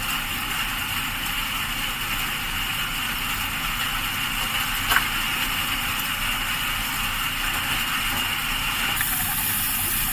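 Steady rain falling, an even hiss with no rhythm, with one sharp click about halfway through.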